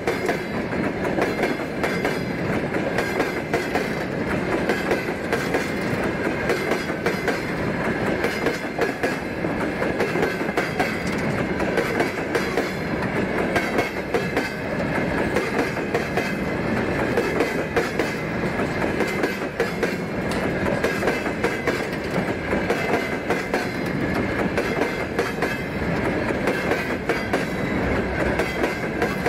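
Covered goods wagons of a long freight train rolling past close by, their steel wheels clattering over the rail joints in a steady rumble. A thin, steady high ringing runs through it.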